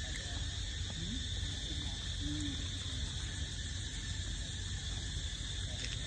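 Steady, unbroken drone of insects in the surrounding woods, a high continuous trill, over a low rumble. A couple of faint, short low glides sound about one and two seconds in.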